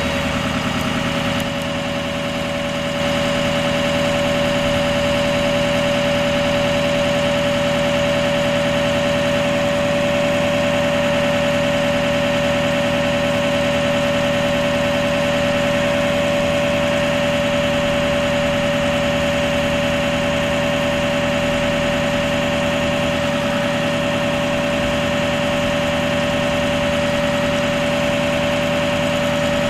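Ford F-550's 6.0-litre V8 diesel engine running at idle under a steady high whine while the truck's hydraulic aerial boom is raised; the sound steps up a little louder about three seconds in.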